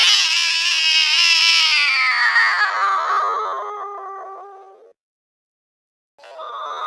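Angry cat yowl slowed down: one long drawn-out wail that slides down in pitch and fades out about five seconds in. After a moment of silence, another slowed yowl begins and rises near the end.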